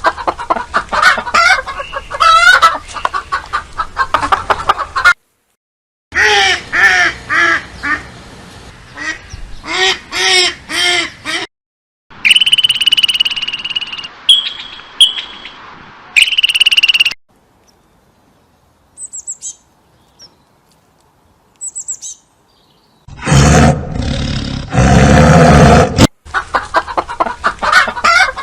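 A string of short animal-call recordings with brief silent gaps between them: birds chirping and warbling, a run of repeated honking or quacking calls, high whistling calls, and, near the end, a loud harsh rough-sounding call before bird chirps return.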